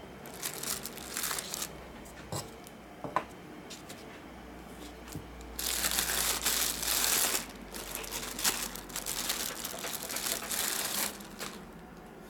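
Clear plastic bag crinkling and rustling as a camera lens is unwrapped by hand. There is a short burst of rustling about a second in and two light knocks a few seconds in. The crinkling is loudest and most continuous from about six to eleven seconds.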